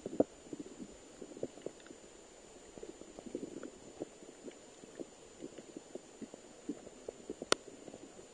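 Muffled underwater sound picked up through a waterproof camera housing: irregular low knocks and pops of moving water, with a faint steady high whine and one sharp click near the end.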